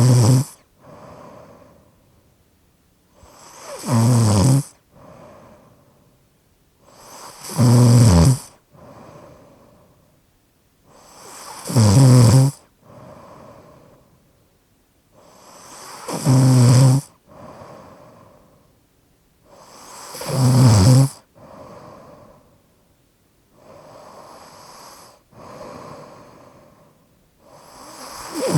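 A person snoring with a slightly obstructed airway: a loud snore about every four seconds, each followed by a softer breath. Near the end two breaths pass quietly before the loud snore returns.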